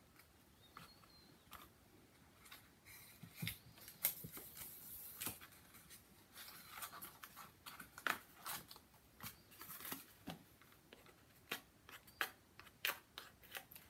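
Small kraft cardboard boxes being handled and set down on a board: faint scattered taps, clicks and light cardboard rustling.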